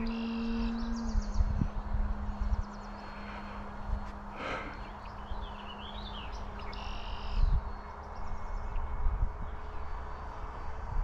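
Distant electric motor and propeller of a Carbon-Z Cessna RC plane humming steadily in flight at about half throttle, its pitch stepping slightly lower about a second in. Songbirds chirp several times, and wind rumbles on the microphone.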